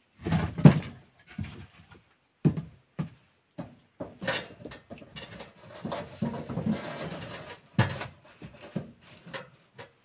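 Irregular knocks and clatter, with a longer rustle in the middle: firewood and the door of a wood stove being handled as the stove is made ready to light.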